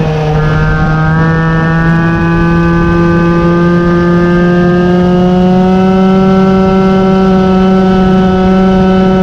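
Peugeot 103 moped's 50cc two-stroke single-cylinder engine running under way at steady throttle. Its pitch dips briefly at the start, then climbs slowly and evenly.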